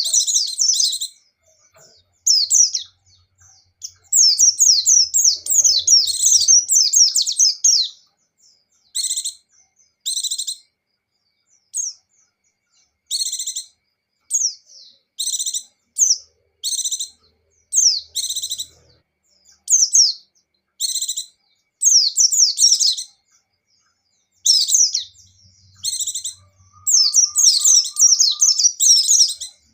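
Pleci (white-eye) singing in quick, high-pitched chattering phrases, with bursts of a second or two broken by short pauses and two longer runs of continuous song. This is the vigorous 'gacor' and rapid 'ngecir' song of a buxtoni-type white-eye.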